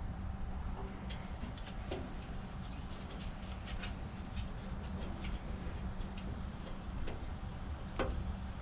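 Scattered light clicks and taps of hands working plastic clips and connectors on a motorcycle, a cluster of quick ticks in the first half and a sharper click near the end, over a steady low background hum.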